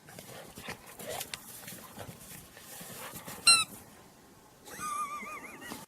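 A dog giving one short, sharp, high squeak, then a high whine whose pitch wavers up and down near the end, over a background of rustling.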